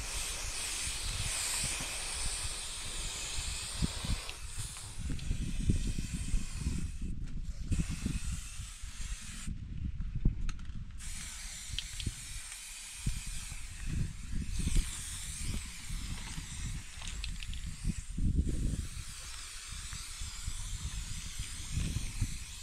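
Aerosol spray-paint can hissing in long sprays, breaking off briefly a few times.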